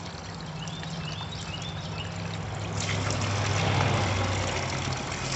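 Spring water pouring in a steady jet from a spout and splashing into the stone-lined pool below. A low steady hum runs underneath, and the whole sound swells a little about three to four seconds in.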